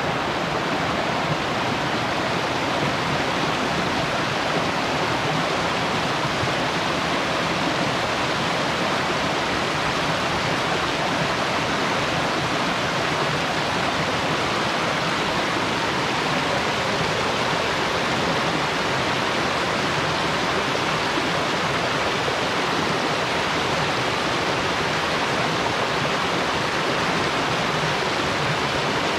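Waterfall: a steady rush of falling water, unchanging throughout.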